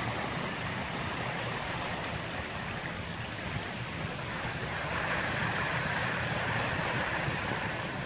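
Rainwater runoff rushing down a concrete storm drain channel into the surf, with ocean waves washing back up against the outflow. A steady wash of water that swells a little about halfway through.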